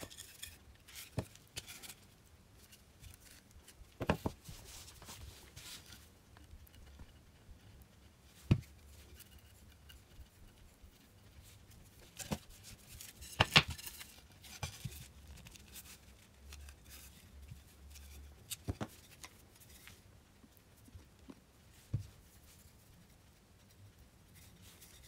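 Small wooden slats being handled: scattered sharp clicks and knocks of wood picked up and set down, the loudest about eight and thirteen seconds in, with soft brushing and scraping in between.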